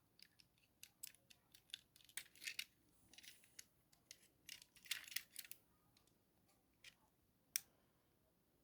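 Faint, irregular light clicks and taps, in small clusters, with one sharper click near the end, as of a small hard object being handled.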